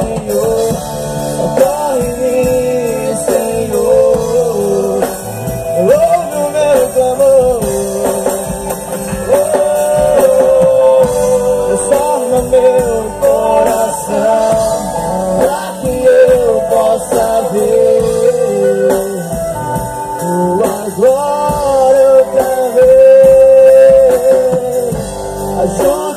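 Live band playing a slow worship song: a male voice sings a wavering melody over electric guitars, electric bass and drums.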